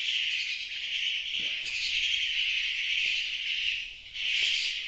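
Steady high-pitched buzzing of an insect chorus, dipping briefly about four seconds in.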